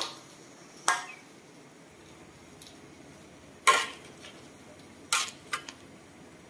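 Metal utensils knocking against a metal wok, about four separate clinks with a short ring, as pieces of chicken in broth are turned.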